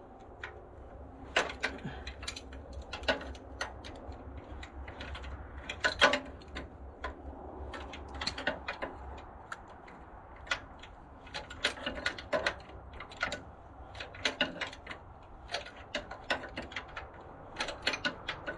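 Hand tools working on metal: irregular sharp clicks and clanks, like a socket wrench and loose tools against steel, with a low steady hum underneath.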